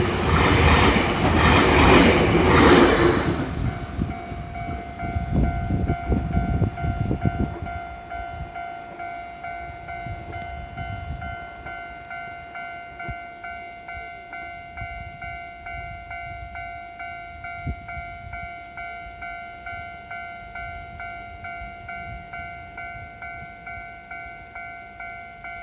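A Nankai Main Line train passes with loud wheel clatter that dies away about eight seconds in. A level-crossing warning bell rings in even pulses and keeps ringing after the train has gone.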